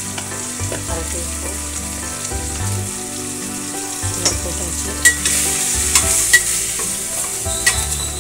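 Onions and tomatoes sizzling in hot oil in a pressure cooker pot as sambar masala is fried. From about four seconds in, a spatula stirs and scrapes against the metal pot, making sharp clicks.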